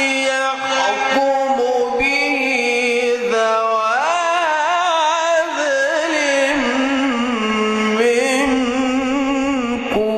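A man's voice in melodic Quran recitation, holding long drawn-out notes with wavering, ornamented turns in pitch.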